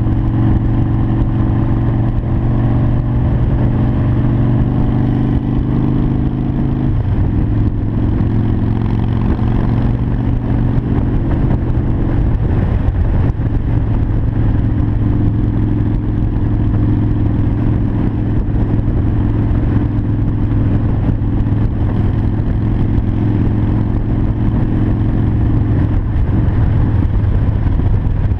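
Harley-Davidson Sportster 1200 Custom's air-cooled V-twin running under way at road speed, mixed with rumbling wind noise on the microphone. The engine note steps down in pitch about seven seconds in and changes again a couple of times later.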